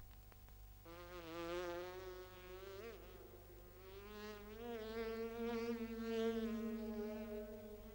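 A fly buzzing with a wavering pitch that slides up and down, starting about a second in and fading out near the end.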